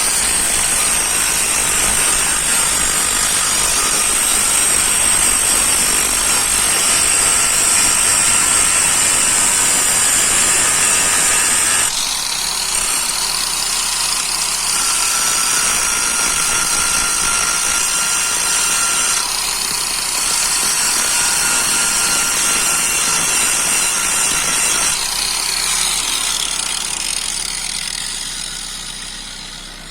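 Steady grinding as a tool is held against the spinning brake disc of a Lada Granta, wearing down the lip that has formed on the disc's edge. This is a rough garage cure for brake squeal. The car's engine runs underneath to turn the wheel, and the sound changes abruptly about 12, 19 and 25 seconds in before fading away near the end.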